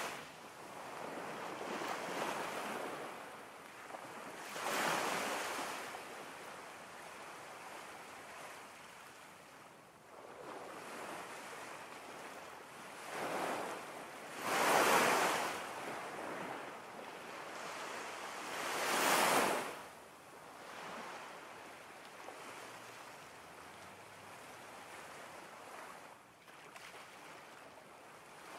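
Ocean waves washing in and out: a steady hiss of surf that swells and fades every few seconds, with the loudest surges a little past the middle.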